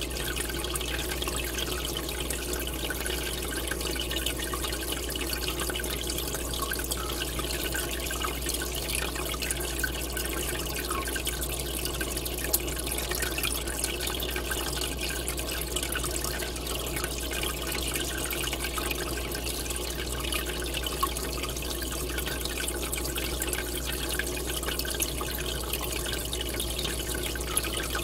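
Steady bubbling and trickling of a large aquarium's aeration and water circulation, with a steady low hum underneath and a few small drip-like clicks.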